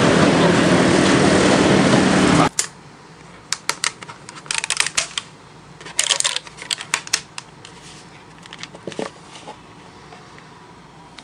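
Loud, steady din of a busy street-side roast duck shop that cuts off suddenly. Then, in a quiet room, a cardboard takeaway lunch box is handled and opened: scattered light taps and clicks and a couple of short bursts of paper crinkling.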